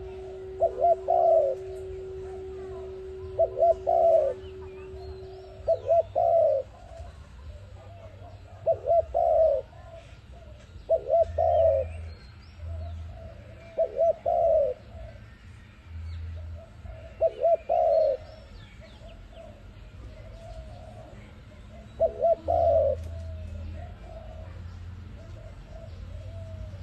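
A dove cooing in repeated phrases, one about every two to three seconds, with a longer pause about two thirds of the way through. Faint chirps of small birds sound between the coos, and a steady low hum stops about six seconds in.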